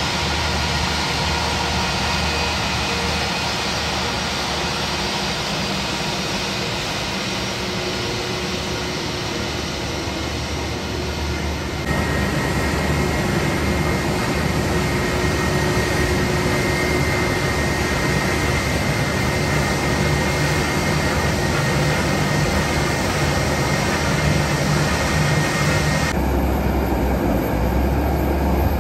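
Jet engines of an Airbus A320-family airliner running at low taxi power as it rolls across the apron: a steady rumble with a whine over it, changing abruptly twice.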